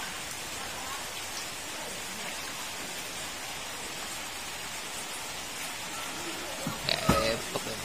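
Steady rain falling, an even hiss. About seven seconds in there is a brief louder burst: a low thump and a short pitched sound.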